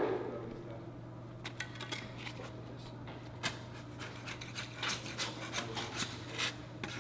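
A pole-mounted cartridge gun filling a concrete floor joint with polyurea filler, its nozzle giving scattered light clicks and scrapes as it is drawn along the joint, over a steady low hum.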